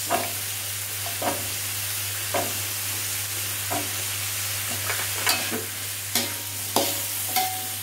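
Chopped green beans, sweet corn and spices sizzling in hot oil in a wok, with a metal spatula knocking and scraping against the pan about once a second, a few strikes ringing briefly. A steady low hum runs underneath.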